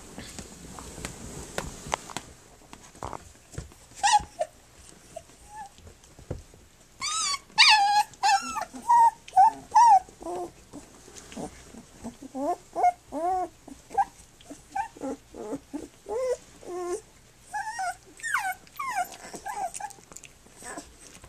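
Three-week-old Standard Schnauzer puppies yipping, squealing and whining as they play-wrestle, many short calls, loudest in a run of high yelps about seven to ten seconds in. Soft scuffling of the puppies on the carpet comes before the calls start.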